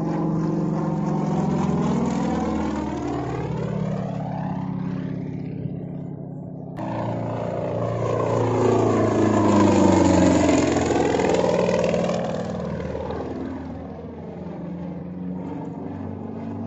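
Single-engine piston aerobatic plane flying past: its propeller and engine drone shifts in pitch as it passes, loudest about ten seconds in and then falling away.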